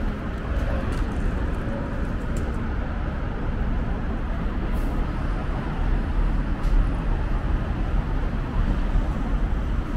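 Steady road traffic on a busy city street, a continuous low rumble of cars, with a few faint brief clicks.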